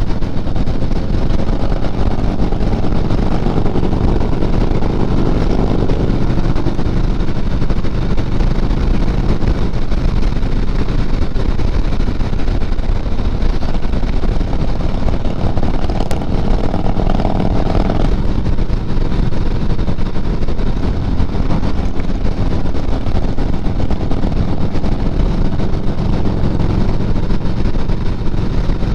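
Motorcycle engine running steadily while riding, mixed with road and wind noise. A higher tone in the engine sound stops suddenly about two-thirds of the way through.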